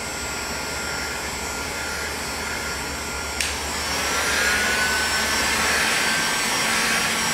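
Handheld electric heat gun blowing steadily, its fan motor running with a faint whine. A sharp click about halfway through, after which it runs a little louder with a slowly rising whine.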